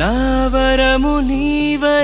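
Background music: a singer or lead instrument holds long notes with slight pitch bends over a steady low drone.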